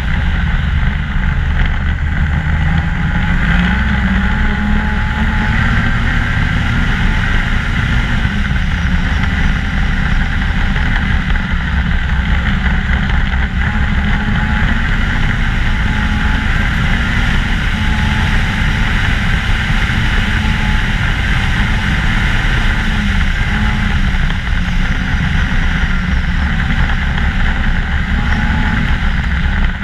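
2014 Ski-Doo MXZ 600 snowmobile running steadily at trail speed, its engine note wavering slightly up and down with the throttle over a continuous low rumble.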